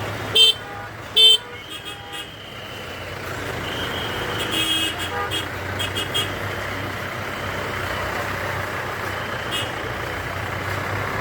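Road traffic with vehicle horns: two short, loud honks near the start, then steady engine and road noise with several shorter beeps around the middle.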